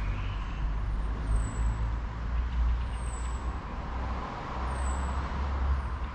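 A motor vehicle passing on a wet city street: a low engine rumble with tyres hissing on the wet road, the hiss swelling about four to five seconds in.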